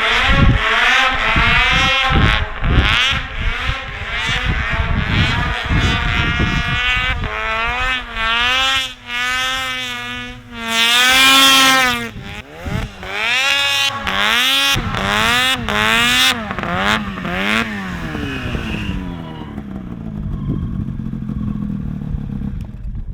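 Two-stroke snowmobile engine revving hard, its pitch climbing and dropping again and again as the throttle is worked. About nineteen seconds in it falls to a quieter, steadier running sound.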